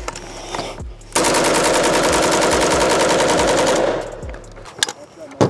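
Pioneer Arms 5.56 AK rifle firing full auto: one continuous burst of about 30 rounds lasting nearly three seconds, starting about a second in. A couple of faint clicks come before it.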